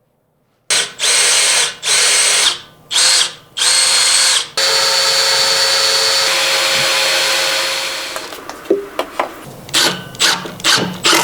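Electric drill run in four short bursts, then held for a few seconds before it winds down. A series of sharp clicks and knocks follows.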